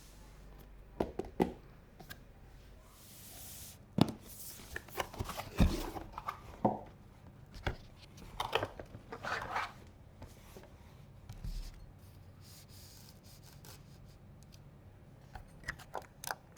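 Hands handling PC hardware and packaging: scattered clicks and knocks, the sharpest about four and five and a half seconds in, with short bursts of rustling.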